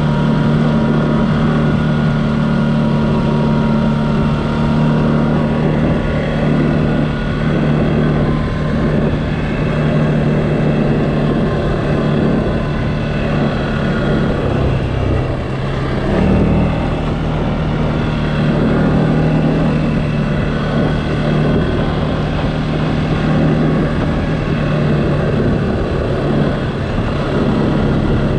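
CFMOTO ATV engine running steadily under way off-road, its pitch shifting up and down around the middle as the throttle changes.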